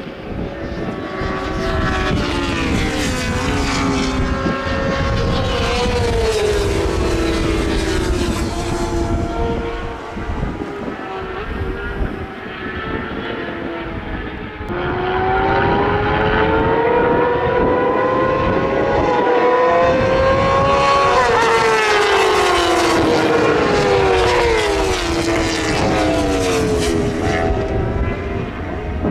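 Racing motorcycles (superbikes and 600 cc supersports) going past at speed on a road circuit, engine notes climbing as they accelerate and falling as they pass and draw away. Two loud passes, the second and louder one starting about halfway through.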